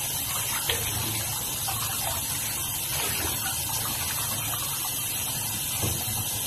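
Water running from a handheld shower head and the bath tap, spraying onto soaked clothing and splashing into a part-filled bathtub: a steady rush, with two brief louder moments, about a second in and near the end.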